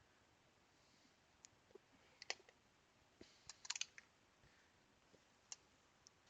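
Mostly quiet, with a few faint clicks and taps of small tools and electronic parts being handled on a workbench, including a quick run of clicks about three and a half seconds in.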